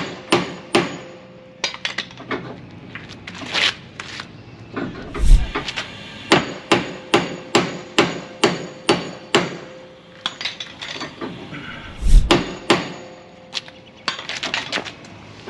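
Hammer striking steel at a semi-trailer's sliding tandem, pounding the slider's locking pins. Runs of sharp metallic blows about two a second, with two heavier, deeper blows about five and twelve seconds in.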